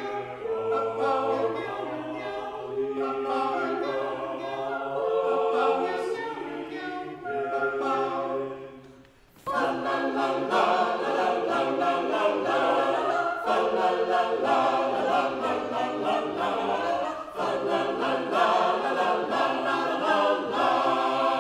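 Mixed a cappella choir singing a comic Renaissance madrigal, with the upper voices imitating dog, cat, cuckoo and owl over a bass line sung in mock Latin. The singing drops out briefly about nine seconds in and comes straight back.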